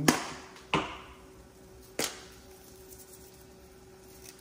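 Three sharp clicks and knocks from seasoning shaker bottles being handled over a frying pan: near the start, under a second in, and about two seconds in.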